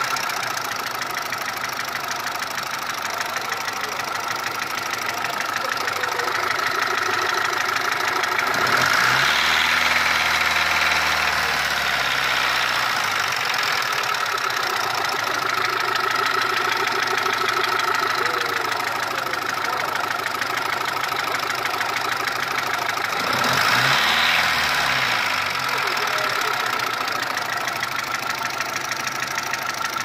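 Mitsubishi 1.3-litre engine idling with a ticking clatter, revved briefly twice. It is a noise that appeared after an engine overhaul and seems to come from between the cylinder head and the block.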